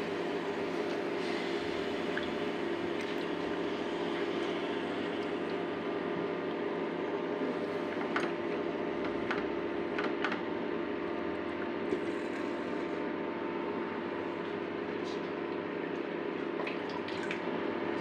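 Raw bone-in meat and spices being mixed by hand with a spoon in a metal pot, with wet squishing and a few light clicks against the pot, over a steady background hum.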